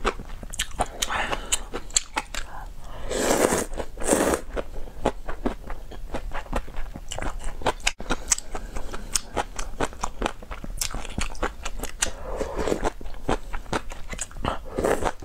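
Close-miked person eating spicy river-snail rice noodles (luosifen): steady chewing full of wet clicks and light crunches. It is broken by a few longer, louder slurps of noodles, about three and four seconds in and twice more near the end.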